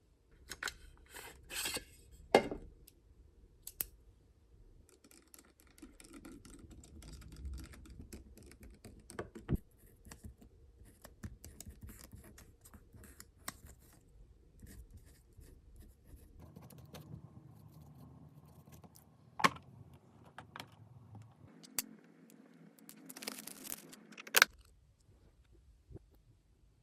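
Small repair tools and parts being handled during an iPad mini screen and battery replacement: scraping and scratching with scattered sharp clicks, the loudest a few seconds in, two-thirds of the way through and near the end.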